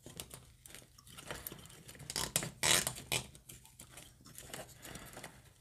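Plastic cable ties being pulled tight around computer cooling fan frames: faint, irregular ratcheting clicks mixed with the rustle of handling plastic and wires.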